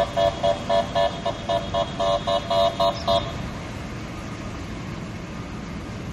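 A vehicle horn sounding a rapid string of short honks, about four a second, stopping about three seconds in. Under it is a steady wash of noise from rain and floodwater.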